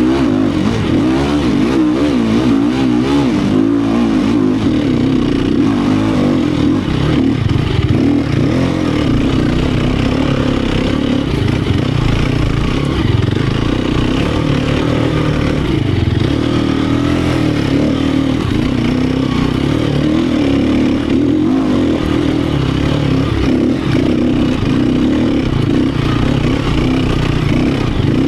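Four-stroke single-cylinder engine of a 2018 Sherco 250 SEF Factory enduro motorcycle running under constantly changing throttle, its pitch rising and falling as it revs.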